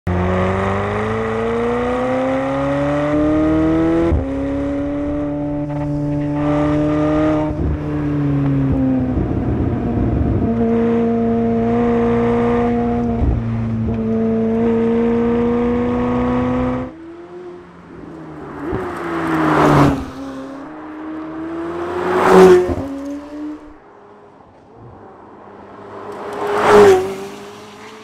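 McLaren 750S's twin-turbocharged 4.0-litre V8 accelerating hard, its note climbing and dropping back with each upshift. In the second half the car passes three times, each pass loud and brief with the pitch falling as it goes by.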